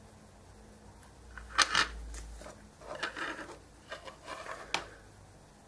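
Small handling noises on a wooden tabletop from brush, paint pots and model parts. There are two sharp scrapes about one and a half seconds in, a rubbing rustle around three seconds, then light clicks ending in one sharp click near the end.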